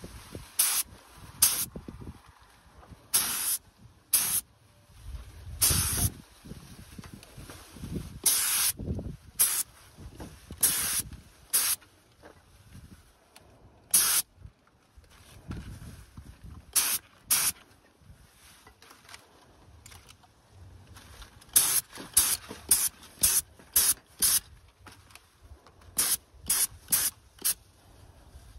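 Paint spraying in many short hissing bursts, each a second or less, coming in a quick run near the end: a dust coat of paint being laid on.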